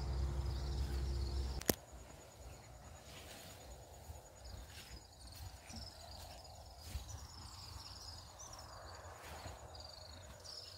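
Outdoor ambience: a thin steady insect trill and repeated short descending bird chirps. A low steady hum is heard at first and cuts off abruptly with a click about two seconds in.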